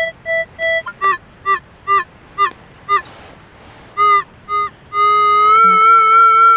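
Minelab CTX 3030 metal detector sounding on a buried target: a run of short electronic beeps, about two a second, then a long steady tone with a slight waver from about five seconds in.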